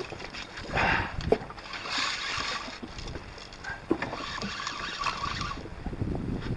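Water sloshing and splashing around a small fishing boat, coming in swells, with a couple of light knocks of gear against the boat.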